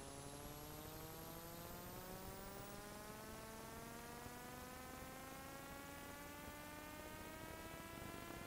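A steady buzzy humming tone with many overtones, rising slowly and evenly in pitch, with a faint high whine rising alongside it.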